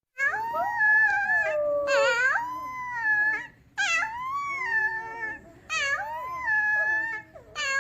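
A dog howling in a run of about five long, wavering calls that slide up and down in pitch, with short breaks between them; the second call is short and warbling.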